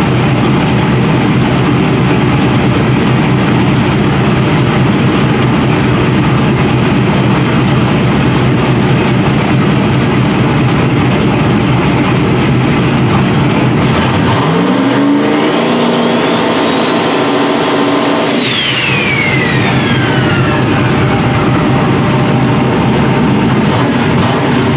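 Turbocharged LS V8 running on methanol, loud and steady just after starting. About 14 seconds in it is revved: the engine note climbs and a turbo whistle rises with it, then the throttle comes off at about 18 seconds and the whistle falls away quickly as the engine drops back to idle.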